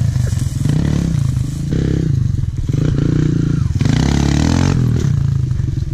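Kawasaki dirt bike engine revving up and down as the rider lifts the front wheel in slow wheelies, the throttle opened and backed off again and again.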